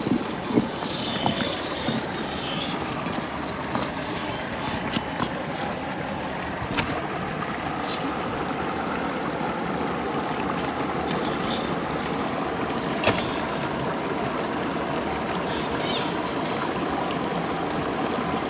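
Shallow stream water running over rocks, a steady rushing, with a few sharp clicks or knocks scattered through it, the loudest about thirteen seconds in.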